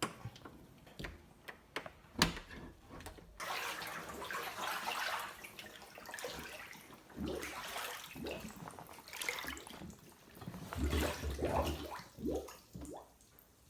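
A door knocking shut about two seconds in, then floodwater sloshing and splashing in uneven surges as someone wades through it.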